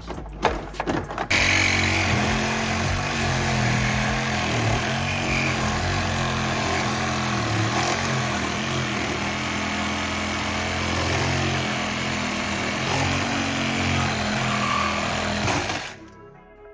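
A power tool clicking rapidly at first, then running for about fifteen seconds with a steady, slightly wavering hum before stopping abruptly near the end.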